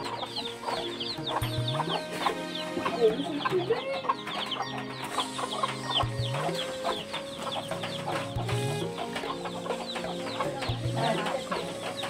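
Chickens clucking, with many short high calls throughout, over background music.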